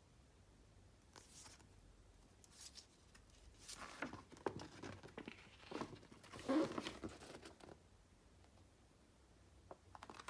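Packaging being handled and torn open by hand: scattered rustles and short rips, the busiest and loudest stretch from about four to seven seconds in.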